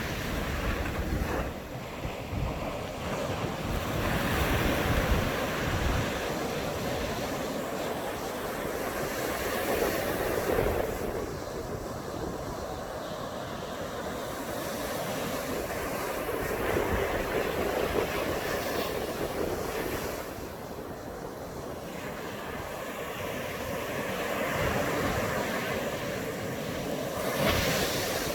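Sea waves breaking and washing up on a beach, the surf swelling and easing every several seconds, with wind buffeting the smartphone microphone.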